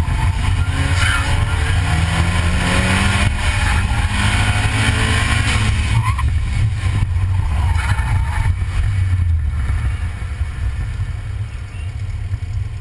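2006 VW GTI's turbocharged four-cylinder engine under hard throttle on an autocross run, its pitch rising and falling as the driver accelerates, shifts and lifts, over a heavy low rumble. In the last couple of seconds the sound eases off as the car slows.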